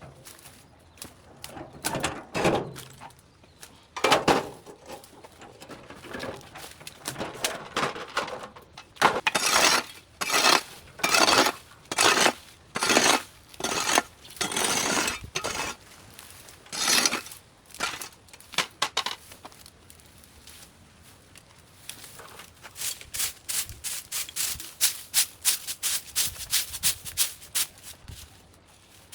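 Hand cleanup work on debris: a series of irregular scraping and rustling strokes, then about two-thirds of the way through a fast, even run of short strokes, three to four a second.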